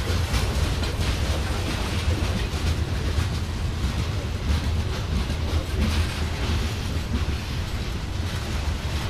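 CSX freight train's covered hopper cars rolling past: a steady low rumble of steel wheels on rail with faint repeated clicks.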